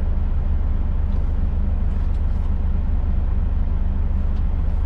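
Semi-truck's diesel engine running, a steady low rumble heard from inside the cab.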